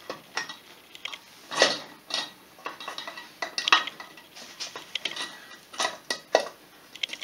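Scattered metal clinks and knocks as the aluminium crankcase halves of a Polaris 500 engine are pushed and worked together by hand, with two louder knocks, one about a second and a half in and one near four seconds.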